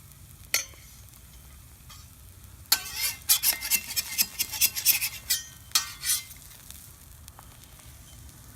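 Metal spatula scraping and tapping on a flat-top griddle as crisped cheese crisps are lifted off: one scrape about half a second in, then a quick run of scrapes and taps from about three to six seconds in.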